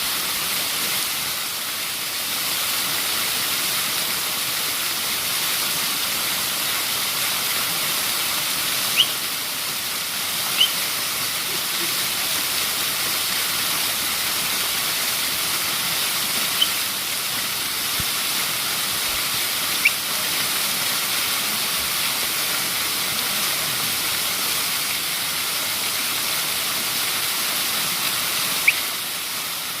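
Waterfall: a steady, even rush of falling water. Five short high chirps break through it at scattered moments.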